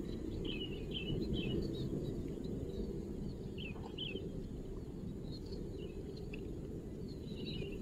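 Small birds chirping in short, scattered calls over a steady low rushing background noise.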